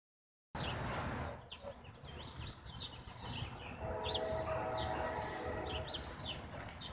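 Songbirds chirping repeatedly, with a distant locomotive air horn sounding one steady chord from about four seconds in, lasting about two seconds.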